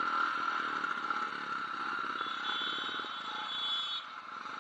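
Motorcycle engines running at low speed as a group of bikes rides slowly in convoy, heard from one of the bikes with road and wind noise, and a faint thin high tone for a couple of seconds midway.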